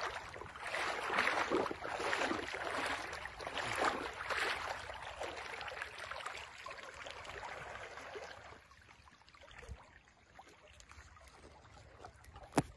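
River water splashing and sloshing around a person wading chest-deep, in surges about once a second. About eight seconds in it drops to a faint trickle, and a single sharp click sounds near the end.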